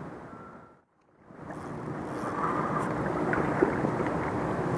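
Outdoor riverbank ambience: a steady wash of wind and water noise with a faint low hum under it. It fades out to silence about a second in and fades back up, the sign of an edit, with a single small click later on.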